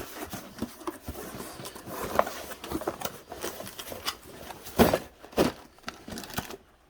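Cardboard packaging being handled and pulled open: rustling and scraping with scattered clicks, and two sharper knocks about five seconds in.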